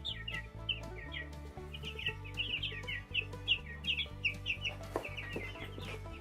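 Baby chicks peeping: a rapid string of short, high, falling cheeps from several chicks, with steady background music underneath.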